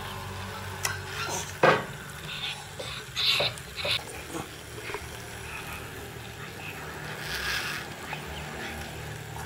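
Battery-powered toy train running on its plastic track, a steady low motor whir, with a few sharp clicks in the first two seconds and short scuffing noises about three to four seconds in.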